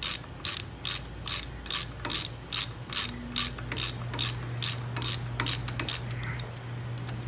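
Hand ratchet clicking as it backs out a small 10 mm brake caliper bolt, about three clicks a second, quicker near the end and stopping about six seconds in. A steady low hum runs underneath.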